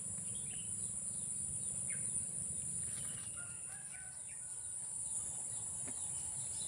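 Steady high-pitched chorus of crickets and other insects, with scattered bird calls over it, among them a rooster crowing about three seconds in.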